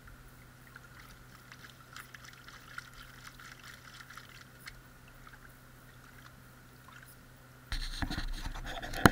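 Water sloshing and dribbling as a plastic gold pan is swished and dipped in a tub of water. It is faint with small splashes at first, then louder splashing near the end.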